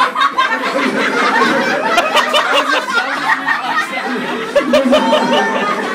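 A small group of young people laughing and giggling, with voices chattering over one another.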